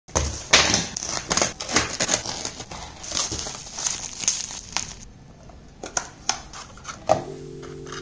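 Plastic bubble wrap crinkling and crackling as it is unwrapped by hand, with a few sharp clicks after. Steady held musical notes begin about seven seconds in.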